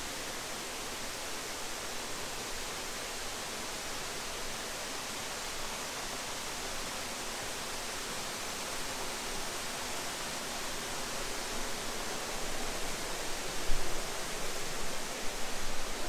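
Steady rush and hiss of water pouring over a creek waterfall, heard from its top. A few louder bumps come near the end.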